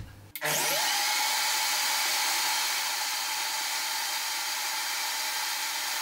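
A click of the control, then a high-performance blender with a stainless steel jug starts about a third of a second in, spins up with a rising whine and runs steadily at high speed. It is blending a thick mousse of dates, cocoa and coconut milk for the second time, whipping air into it.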